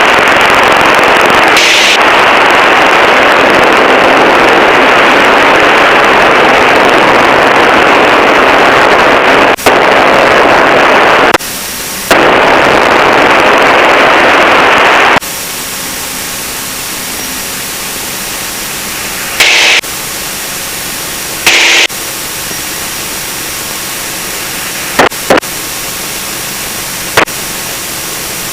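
Aviation radio receiver hiss: for the first fifteen seconds or so a loud, muffled rushing static with no voice in it, dropping out briefly near the eleven-second mark. It then falls to a quieter, thinner hiss, broken by a few short squelch pops and clicks.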